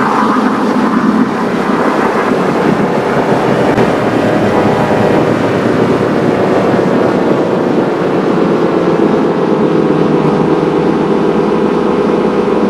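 Loud, heavily effects-processed electronic audio: a dense, noisy wash with steady droning tones, one of which slowly bends in pitch about halfway through.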